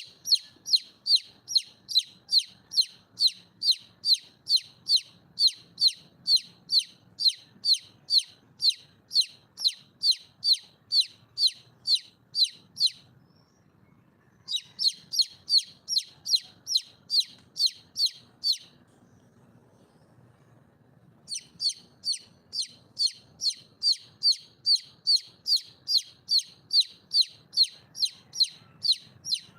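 Wild junglefowl hen calling for a mate: a fast, even series of short, high, down-slurred notes, about two and a half a second. The series breaks off twice, about thirteen seconds in and again for about three seconds near the nineteen-second mark, then resumes.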